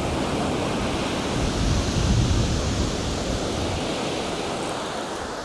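Surf breaking on a shingle beach: a steady rush of wave noise that swells about two seconds in, then slowly eases off.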